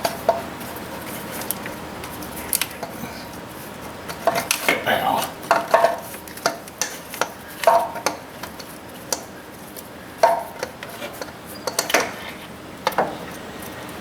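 Irregular metallic clinks and knocks with short ringing as a replacement starter motor is worked up into place under a Chevy Silverado 1500, bumping against brackets, cables and the engine block.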